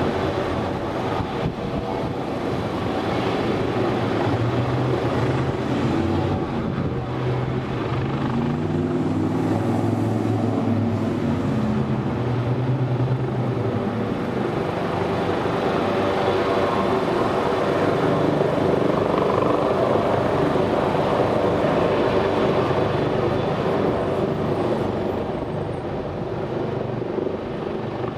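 AgustaWestland AW139 twin-turbine helicopter running at full rotor speed as it lifts off and climbs away, a steady loud turbine-and-rotor sound with humming tones that shift slightly in pitch. It eases off a little near the end as the helicopter moves away.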